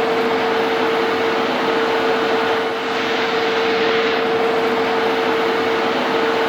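1K62 universal metal lathe running under power, a steady loud mechanical hum and hiss with a constant whine from the spindle drive.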